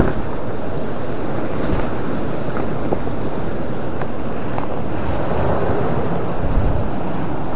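Steady wind noise on the microphone, with a few faint clicks.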